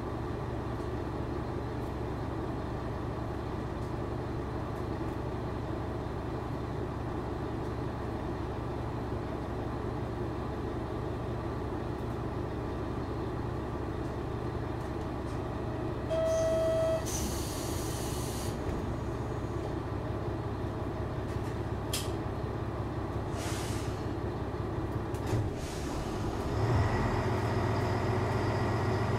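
JR Shikoku 1000 series diesel railcar idling at a standstill, a steady low engine drone. About halfway through comes a short beep followed by a hiss of air, a click and a second hiss follow, and near the end the engine gets louder and its note rises.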